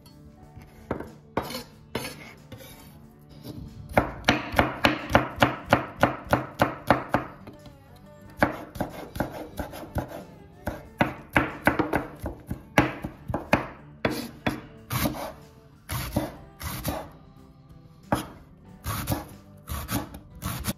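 Kitchen knife chopping on a wooden cutting board in quick runs of sharp strokes, about four to five a second, with pauses between the runs.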